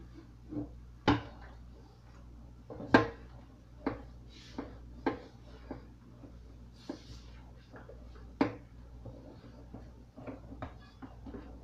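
A skillet being washed in a stainless steel sink, knocking and clattering against the sink and faucet in a string of sharp, irregular knocks, the loudest about a second in, about three seconds in and near eight and a half seconds, with short soft stretches of noise between.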